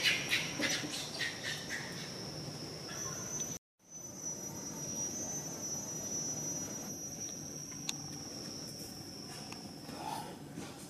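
Steady high-pitched drone of insects, with a few short chirps in the first couple of seconds and a brief dropout to silence about three and a half seconds in.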